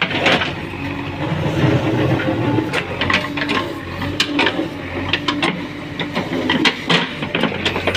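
JCB 3DX backhoe loader at work: its diesel engine running steadily, with the engine note rising and falling under load and many sharp metallic knocks and rattles from the digging arm and bucket.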